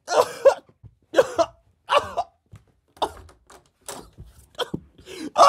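A man coughing and gasping in short, strained vocal bursts, as if struggling for breath after being choked.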